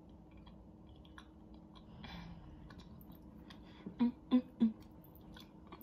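Soft chewing of egg-yolk mooncake with small wet mouth clicks, then three short closed-mouth "mm" hums of enjoyment about four seconds in.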